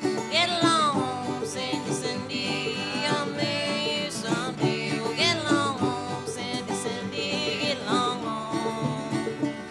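Live acoustic folk music: a plucked banjo with a sliding melody line over it, the notes swooping down in pitch every second or two.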